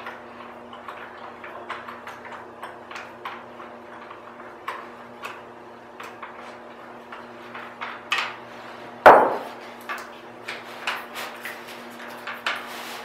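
A 3/16-inch Allen key starting the action screws of a rifle action into an aluminium AICS chassis: a run of small, irregular metal clicks as the key is turned and reset in the screw heads, with one louder knock about nine seconds in.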